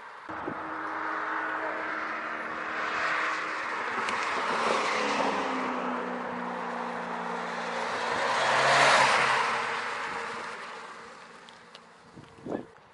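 Volkswagen Golf 1.4 TSI's turbocharged four-cylinder petrol engine and tyres as the car drives up and past, growing louder to a peak about nine seconds in, then fading as it moves away. A short knock near the end.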